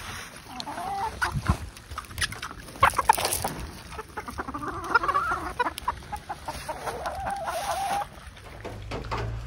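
Chickens clucking, several drawn-out rising and falling clucks, over a steady run of small clicks and crunches from a Kunekune sow eating from a rubber feed pan.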